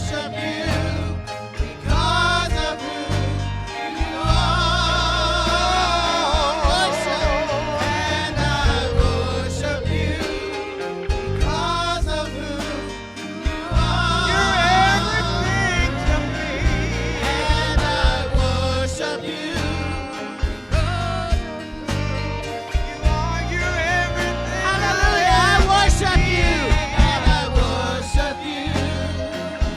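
Gospel worship music: a singer with strong vibrato over a band with bass and drums.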